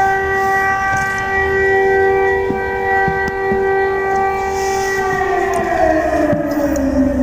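A loud siren holding one steady tone, then its pitch falling away steadily about five seconds in.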